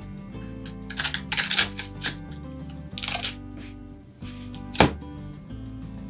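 Paper template being torn off a board studded with nails, in several short rips, over steady background music.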